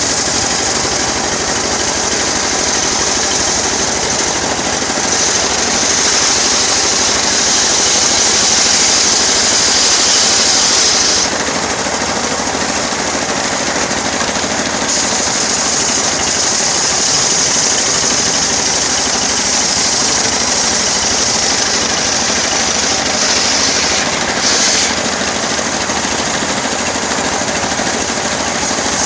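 Engine-driven homemade circular sawmill running steadily while sawing teak, with a louder high-pitched hiss in two long stretches, about five seconds in and again from about fifteen to twenty-five seconds in.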